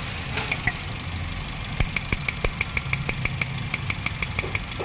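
Toyota Vios 2NZ four-cylinder engine idling roughly and unevenly, with a fast, regular ticking of about five ticks a second from about two seconds in. It is a rough idle that a throttle-body cleaning has not cured; the mechanic suspects a vacuum leak or a misfire.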